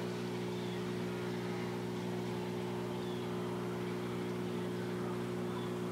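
Steady low electrical hum with a light hiss, typical of a reef aquarium's pumps running.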